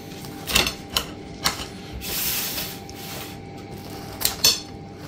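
Kitchen scissors cutting through a crisp Neapolitan pizza crust: a series of sharp snips and clicks from the blades, with a longer crunching cut about two seconds in.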